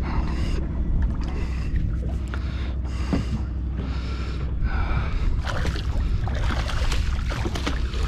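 Steady low wind noise on the microphone. In the last few seconds, water splashes as a hooked fish thrashes at the surface and is scooped into a landing net beside the boat.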